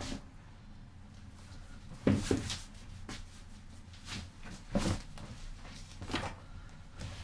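A few short knocks and clatters of small objects being handled and set down, the loudest about two seconds in and again near the five-second mark, over quiet room tone.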